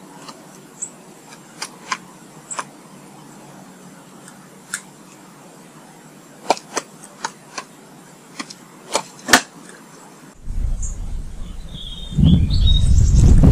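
A scattering of sharp taps and clicks with a few faint high bird chirps; from about ten seconds in, wind buffets the microphone with a low rumble that grows louder near the end, while small birds give a few short chirps.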